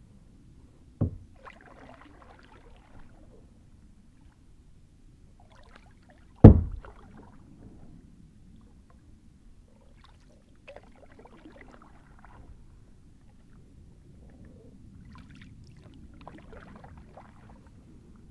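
Kayak paddling: water splashing and dripping off the paddle blade over several strokes, with two sharp knocks, a smaller one about a second in and the loudest about six and a half seconds in.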